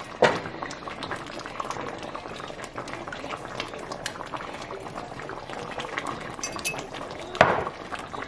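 Thick stew base simmering in a Dutch oven, bubbling and crackling steadily. A utensil clinks against the pot just after the start and knocks louder once near the end.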